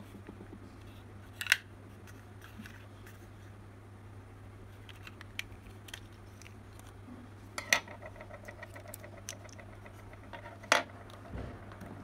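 Plastic flashlight casing being pulled apart and handled: three sharp clicks spread through, with lighter ticks of handling between, over a steady low hum.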